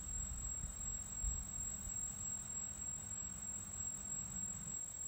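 Quadcopter motors idling on the ground after landing, a steady low hum that cuts off about five seconds in as the Pixhawk autopilot disarms. A low rumble and a steady high thin tone run underneath.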